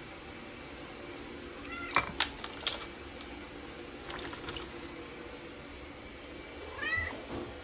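Domestic cat meowing twice, once about two seconds in and again near the end, each call rising and falling in pitch. A few sharp clicks come between the calls.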